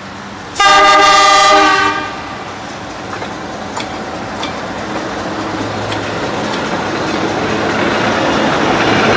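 Alco 930 class diesel locomotive sounding its horn once, a loud multi-note chord lasting about a second and a half. The locomotive then rolls closer with its diesel engine running and its wheels clattering on the rails, growing steadily louder as it passes.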